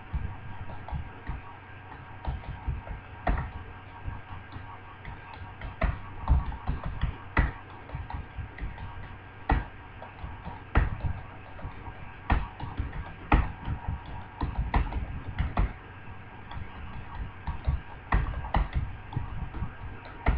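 Typing on a computer keyboard: an irregular stream of key clicks, several a second, as a typing-speed test passage is typed out, over a steady faint hum.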